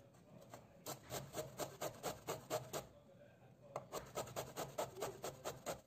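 An aubergine being grated by hand on a stainless steel cone grater: quick scraping strokes, about five a second, in two runs with a short pause between them.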